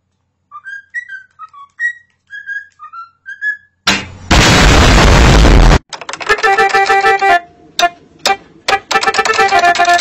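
A bird whistles a run of short, gliding notes. A loud rush of harsh noise follows for about two seconds. Then a cockatoo presses electronic keyboard keys with its beak, sounding irregular clusters of notes with clicks of the keys.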